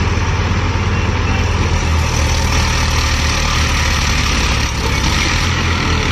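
Eicher tractor's diesel engine running steadily, its deep throb growing a little louder about two seconds in.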